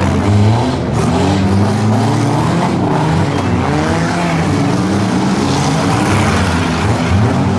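Engines of several compact four- and six-cylinder demolition-derby cars revving, their pitch rising and falling again and again, with a little tire squeal.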